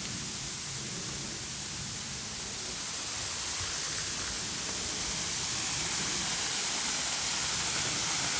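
Waterfall rushing: a steady hiss of falling water that grows slowly louder.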